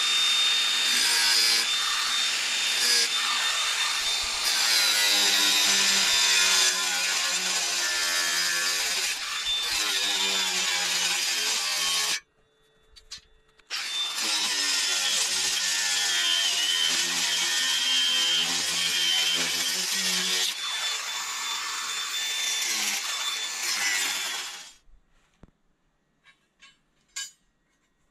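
Chainsaw cutting wood, its pitch dipping and rising as the chain bites. It cuts out suddenly about twelve seconds in, starts again under two seconds later, and stops near the end, leaving a few faint knocks.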